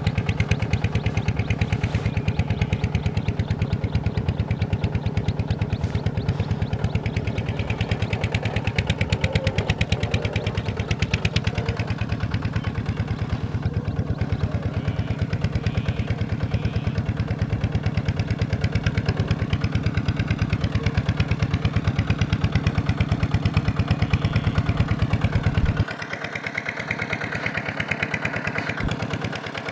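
Small Kubota single-cylinder diesel engine running steadily with a fast, even firing beat. About 26 seconds in, the deep low part of the sound drops away and it goes on quieter and thinner.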